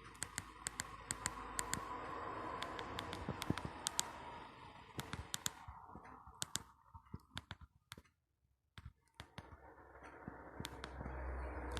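Irregular clicks of a Fly FF179 mobile phone's keypad buttons being pressed, a few a second, over faint background hiss. The sound drops out briefly about eight seconds in.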